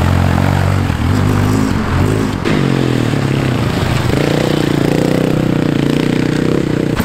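Dirt bike engine revving as the motorcycle rides past, its pitch rising and falling with the throttle; from about four seconds in it holds a higher, steadier note.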